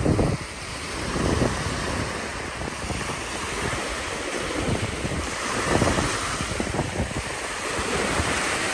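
Small surf waves breaking and washing up the sand at the shoreline, with wind buffeting the microphone in gusts.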